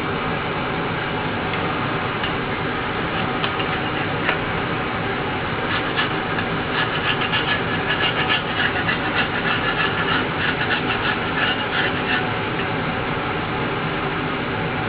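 Quick scratchy scraping strokes, from about six to twelve seconds in, as old foam surround and glue residue are worked off the rim of a JBL woofer's basket during a refoam. A steady mechanical drone runs underneath.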